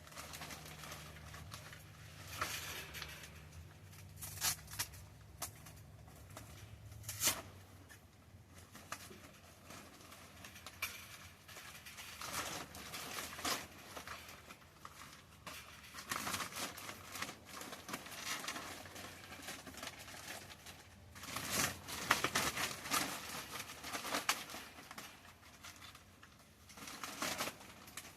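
Thin plastic greenhouse cover crinkling and rustling as it is handled and pulled off the frame, in irregular bursts with a few sharper crackles.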